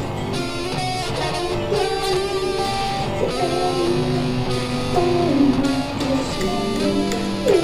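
Music led by guitar, with strummed and plucked strings.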